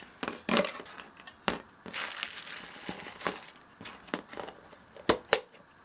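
Crinkling and rustling as something crinkly is handled, with a few sharp clicks and knocks, two of them close together near the end.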